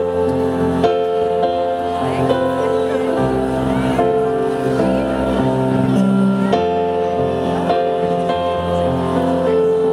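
Live music: a slow, gentle passage with sustained chords on an electronic stage keyboard, the chords changing about once a second.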